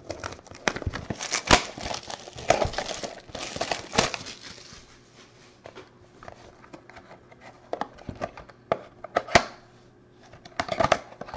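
Plastic shrink wrap being torn and crinkled off a trading-card box by hand, with sharp crackles and clicks that are busiest in the first few seconds, thin out, then pick up again near the end.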